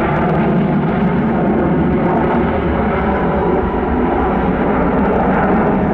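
Boeing 737-900ER's CFM56-7B turbofan jet engines at take-off thrust as the airliner lifts off and climbs: a loud, steady jet roar with a deep rumble underneath.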